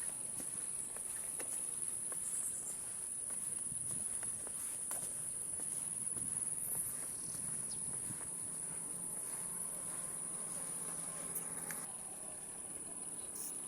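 Insects chirring in one steady, high-pitched drone, with a few faint clicks scattered through it.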